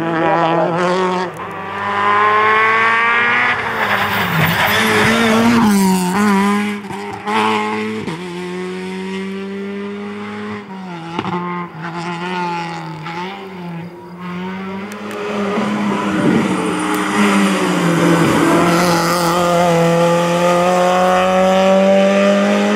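Rally hatchback engines at full throttle, one car after another, each climbing in pitch, dropping at a gear change or lift, then climbing again.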